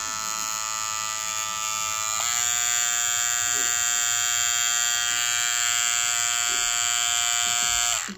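Daling DL-1097 cordless trimmer with a Wahl T-wide blade running with a steady buzz at about 6,600 rpm on its first speed. A little over two seconds in it steps up to a higher speed, a little higher in pitch and louder at about 7,100 rpm, then cuts off near the end.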